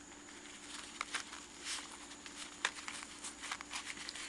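Small items and a pouch being handled: scattered light clicks and brief rustles, growing busier near the end, over a faint steady hum.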